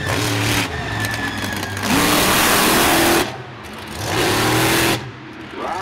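Mini monster truck's engine revving in repeated hard bursts, the pitch climbing with each blip. It is loudest in a full-throttle stretch about two seconds in and another about four seconds in, dropping off sharply in between.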